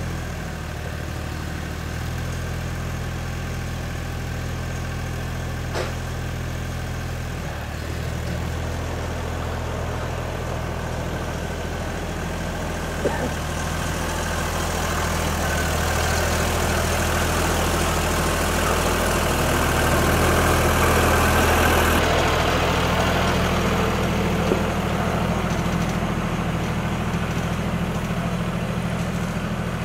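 Compact farm tractor engine running steadily. It grows louder from about halfway through as the tractor comes closer, then eases off a little near the end.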